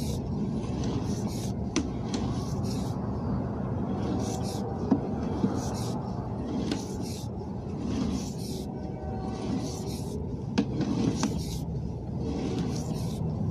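Sewer inspection camera's push cable being pulled back out of a drain pipe. It rubs and scrapes steadily, with louder scraping strokes about once a second and a few sharp clicks, over a low rumble.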